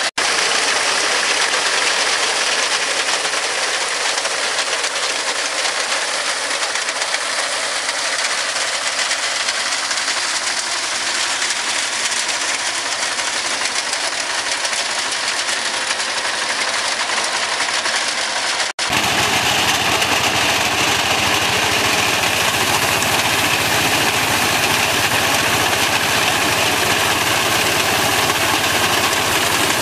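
Small Captain tractor's engine running steadily under load while its front-mounted reaper cuts standing wheat, the cutter bar clattering along with the engine. The sound breaks off for an instant twice, just after the start and about two-thirds through, and is deeper and fuller after the second break.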